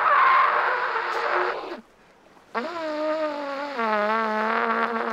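Trumpet being blown: a loud, rough, breathy blast for about two seconds, a short break, then a wavering held note that drops to a lower note about a second later and holds.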